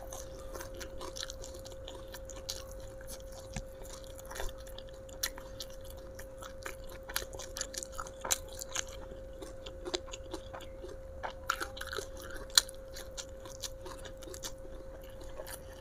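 A person chewing raw kenikir (cosmos) leaves dipped in sambal close to the microphone: a run of small irregular chewing clicks, over a faint steady hum.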